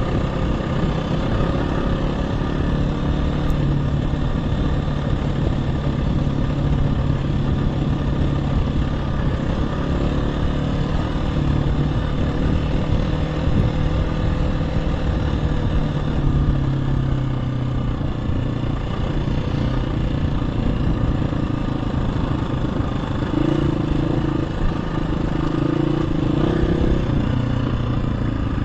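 Onboard sound of a KTM 350 EXC-F four-stroke single-cylinder dirt bike running along a trail. The engine note holds steady, shifts with the throttle and sits a little higher near the end.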